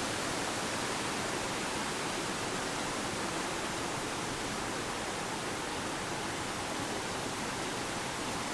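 Steady rush of water from the River Swale and a small waterfall, an even hiss with no breaks.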